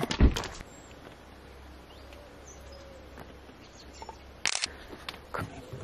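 A single heavy thud just after the start, then quiet outdoor background with faint bird chirps. Sharp clicks come about four and a half seconds in and again near the end.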